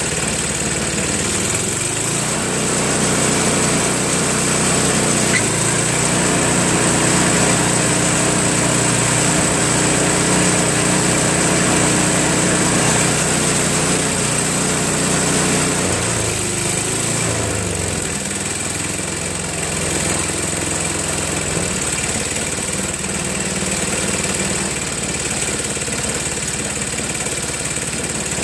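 Craftsman 524 snowblower's 5 hp Tecumseh single-cylinder engine running steadily. It speeds up a couple of seconds in and slows back down about two-thirds of the way through. It keeps running smoothly despite low compression from having been run without oil.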